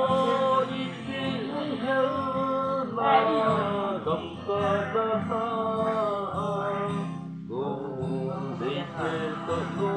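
Two men singing a song together to an acoustic guitar accompaniment, with a short break in the singing about seven and a half seconds in.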